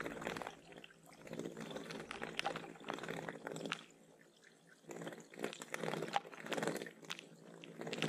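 Small birds splashing as they bathe in a shallow pond, in several bursts with a short lull about four seconds in.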